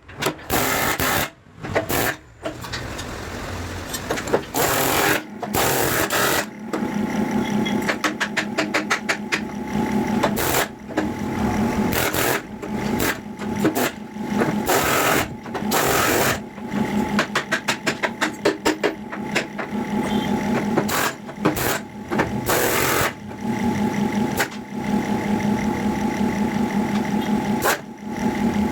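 Impact wrench hammering in repeated bursts of a few seconds each, a fast rattle over a low hum, as the bolts on a JCB loader bucket's teeth are run tight.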